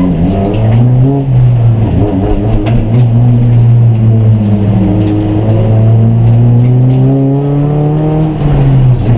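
Race car engine running hard, its pitch held fairly steady and then slowly climbing, with an abrupt drop in pitch near the end.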